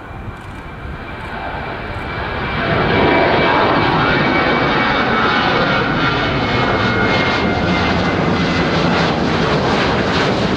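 Twin CFM56 jet engines of a Boeing 737 climbing out after takeoff at climb power. The sound swells over the first three seconds to a loud, steady rumble, with a faint high whine slowly falling in pitch.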